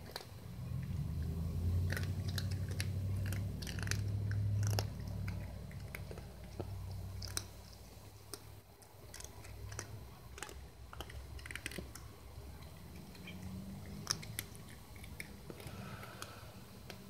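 Cats crunching dry kibble off a concrete floor: irregular sharp crunches of chewing and biting, under a low rumble that is loudest in the first five seconds and then fades.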